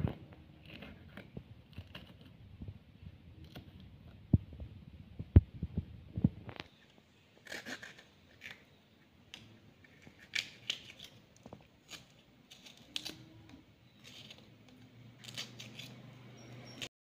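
A knife slicing through a green bell pepper, with a few sharp knocks in the first half, then crisp snapping and tearing as the pepper pieces are broken apart by hand.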